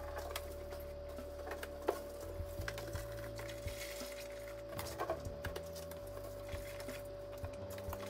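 Scattered light knocks and clicks of groceries and containers being handled and set down, over a steady hum.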